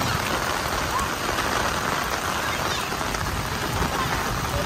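Heavy rain pouring steadily onto a flat concrete rooftop, an even hiss.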